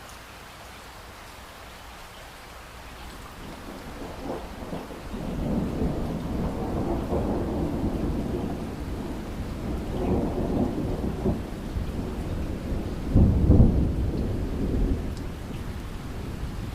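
Light rain falling steadily while distant thunder rumbles in, building a few seconds in and swelling in several waves, loudest near the end before easing off.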